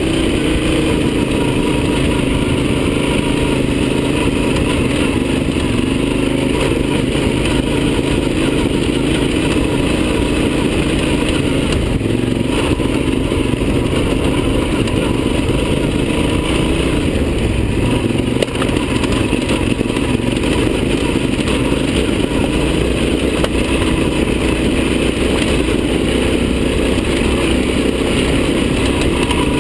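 Yamaha Super Ténéré's parallel-twin engine running steadily under way on a rough dirt trail, its pitch rising and falling slightly with the throttle. A couple of sharp knocks come from the bike over the ground, one a little before halfway and one past the middle.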